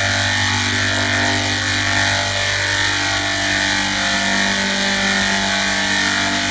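A steady, unchanging mechanical drone: a buzzing hum of fixed pitch with a constant hiss over it.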